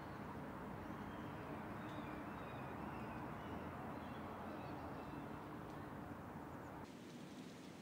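Faint outdoor ambience: a steady low rumble with birds calling briefly now and then. The background changes abruptly about seven seconds in.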